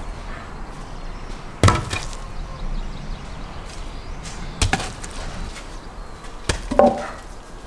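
Sawn logs thrown onto bare earth and onto other logs, landing with sharp wooden knocks, about four times. The loudest comes a little under two seconds in, and the last two land close together near the end.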